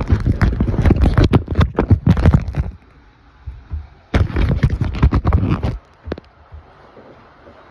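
Phone handling noise: the microphone is rubbed and knocked as the phone is carried, in two runs of dense scraping knocks. The second run stops about six seconds in, leaving a faint steady hiss.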